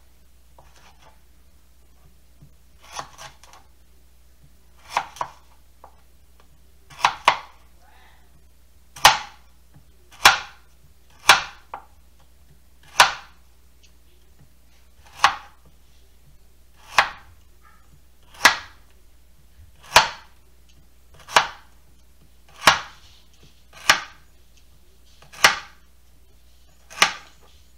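Kitchen knife slicing through butternut squash onto a plastic cutting board, a sharp tap about every one and a half seconds. The first few cuts are softer and come in pairs, and the later ones are single and louder.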